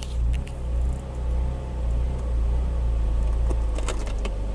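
BMW Z4's N52 straight-six idling cold, the idle hunting and surging up and down: the rough idle that a new upstream O2 sensor has not yet cured. A few light clicks come near the end.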